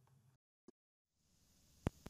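Near silence: faint room hiss drops out completely for almost a second, then returns, and a single sharp click sounds near the end.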